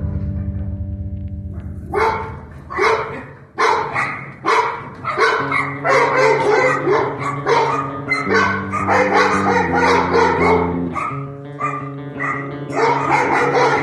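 A Presa Canario barking over and over, about two barks a second, starting about two seconds in, over background music.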